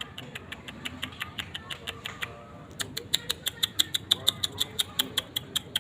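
Blue lovebird's rapid chattering song: a long run of sharp, high chirps at about seven a second. It breaks off briefly a little past two seconds, then comes back louder.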